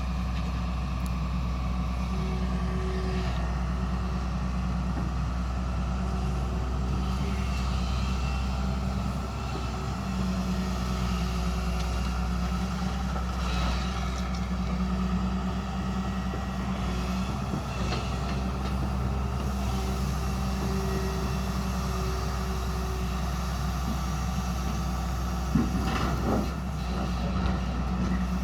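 Hyundai excavator's diesel engine running steadily, with a few clanks and a sharp knock about 25 seconds in.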